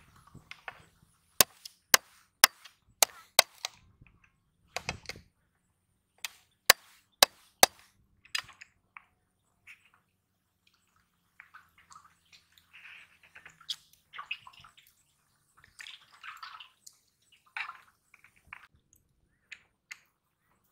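Snail shells being cracked with sharp, loud knocks, in two quick runs about half a second apart. Softer crackling and rustling follow as the broken shells are handled.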